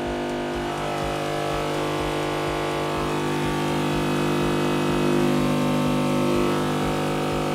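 A 50 Hz sine test tone played through a loudspeaker by a C-Audio RA3001 power amplifier into 5.5 ohms: a steady low hum rich in overtones. It gets louder over the first five seconds as the level is turned up, and the amplifier is driven into clipping.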